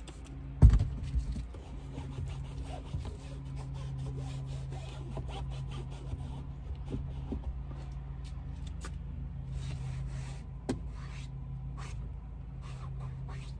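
A cloth wiping and rubbing the plastic and upholstery of a car's door panel and seat in short, irregular strokes. There is a sharp thump about a second in, and a steady low hum runs underneath.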